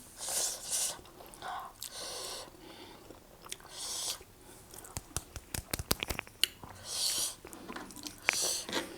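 A person chewing spicy Korean noodles close to the microphone, with several short hissing sounds and a quick run of wet mouth clicks about five to six seconds in.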